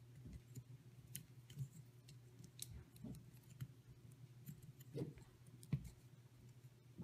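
Faint clicks and light taps of wires and plastic servo plugs being handled and pushed through a carbon fiber quadcopter frame, with a sharper tap about three quarters of the way in, over a steady low hum.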